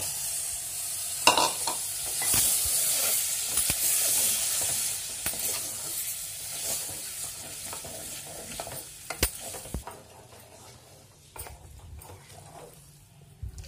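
Raw goat testicles and kidneys hit hot oil and fried onions in a pressure cooker and sizzle loudly, strongest in the first few seconds. A wooden spoon stirs them, with scraping and a few sharp knocks against the pot, as the sizzle dies down toward the end.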